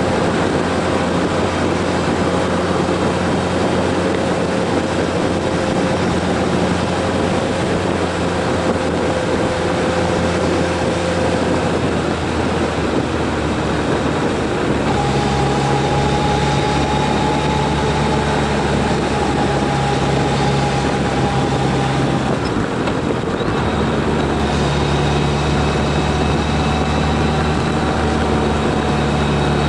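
A car's engine and tyre noise while driving: a steady drone whose engine note shifts to a different pitch about halfway through and drops out briefly about three-quarters of the way in before picking up again.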